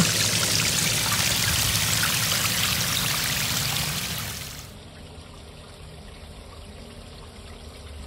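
Water from a small garden waterfall pouring and splashing over rocks into a fountain bowl, a steady rushing splash. A little under five seconds in, it drops suddenly to a much quieter level.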